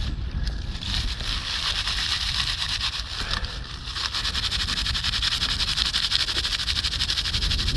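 Dry, papery bark being rubbed and crumpled between the palms to fluff up tinder: a steady, fast crackling rustle that starts about a second in. Wind rumbles low on the microphone throughout.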